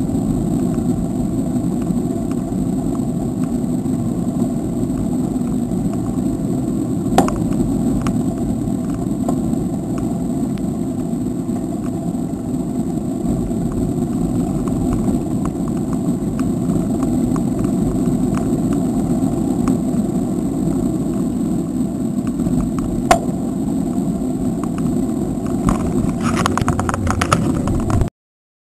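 Steady wind rumble on the microphone and tyre noise of a bicycle rolling along a road, with a single sharp knock twice and a burst of clicks near the end before the sound cuts off suddenly.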